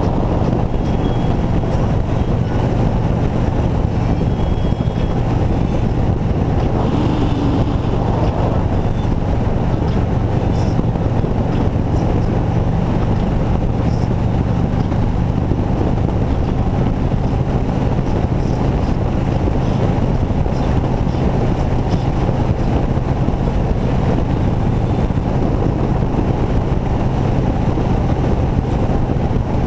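Touring motorcycle's engine running steadily at cruising speed, with wind rushing over a microphone mounted on the bike.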